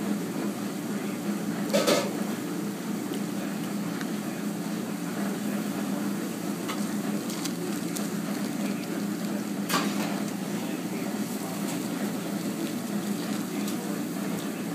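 Small restaurant kitchen ambience: a steady hum and hiss, with two sharp knocks or clatters of kitchen utensils, one about two seconds in and one near ten seconds.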